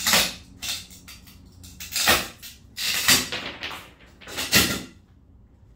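Objects being handled, knocked and scraped, in four short noisy bursts about a second apart.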